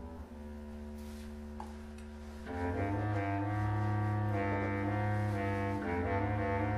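A clarinet choir playing, with low clarinets holding sustained bass notes under the higher clarinets. The full ensemble comes in louder about two and a half seconds in.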